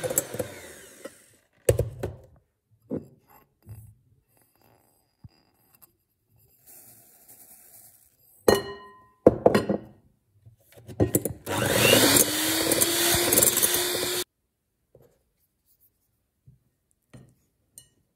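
A small electric motor runs twice. The first run winds down at the start, with its pitch falling. The second spins up about 12 seconds in, with its pitch rising, runs for about two seconds and cuts off abruptly. There are scattered knocks and clatter in between.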